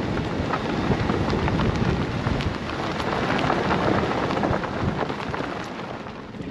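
Car tyres rolling over a dirt and gravel road: a steady rumble of road noise with many small crackles from stones under the tyres, easing down near the end.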